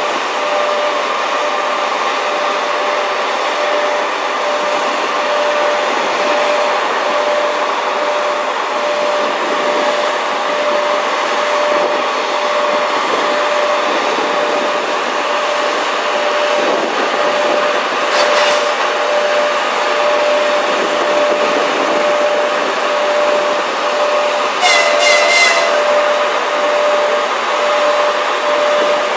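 EP1M electric locomotive's cooling fans and traction equipment running with a steady rushing hum and a constant whine as it creeps up to couple onto a passenger coach. A brief squeal with a few clicks comes about 25 seconds in, the loudest moment.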